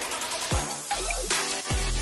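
Electronic intro music with a steady deep bass and two heavy bass hits that drop quickly in pitch.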